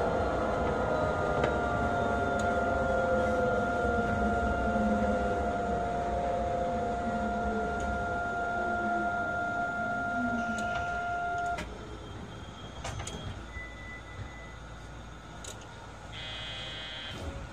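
Astram Line 6000-series rubber-tyred automated guideway train heard from inside the car as it brakes to a stop. Its motor whine falls steadily in pitch over a steady electrical tone, and the running noise cuts off at the stop about 11 seconds in. Then come a few clicks and a brief high electronic tone near the end.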